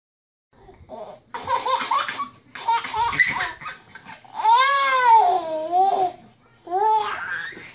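Babies laughing hard in repeated bursts, starting about half a second in. About halfway through comes one long, high laugh that rises and falls in pitch.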